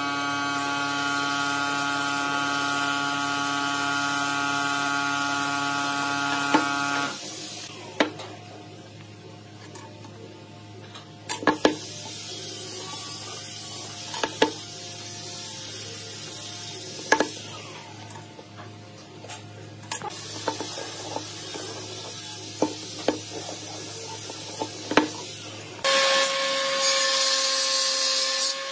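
A steady machine hum for the first seven seconds gives way to scattered sharp knocks and taps of tools on a pine board. About three seconds before the end, a table saw starts running with a steady tone and hiss.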